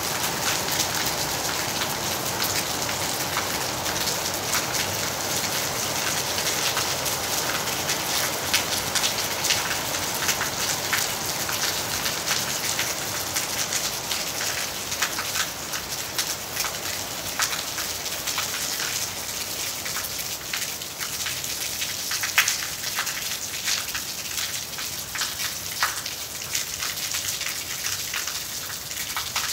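Heavy rain falling on corrugated metal roofing: a dense, steady hiss full of sharp drop ticks, easing slightly in the second half.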